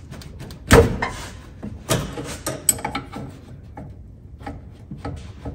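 Wrench working at a rear brake line fitting on a 1989 Chevy S10 to break it loose: a loud metal clank just under a second in, another near two seconds, then scattered clicks and scrapes of metal on metal.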